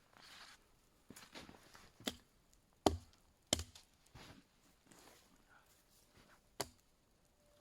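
Wood being chopped: four sharp blows at uneven intervals, with softer scuffing between them.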